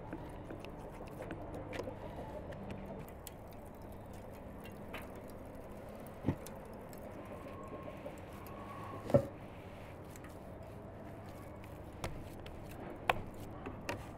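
Hand food preparation on a wooden cutting board: scissors snipping caul fat, then soft wet handling of raw ground meat, with scattered small clicks and a few short knocks on the board, the loudest about nine seconds in.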